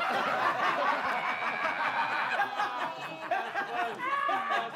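A group of people laughing together at a joke, many voices overlapping.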